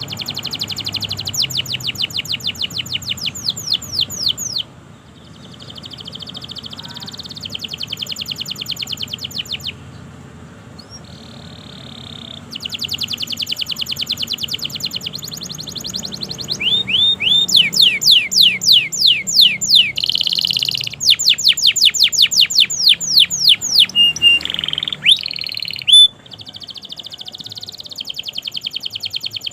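Domestic canary singing a long, continuous song made of rapid trills, each a run of many quick repeated notes, with short pauses about five seconds and about eleven seconds in. The trills grow louder in the second half, with a sharp high note near the end.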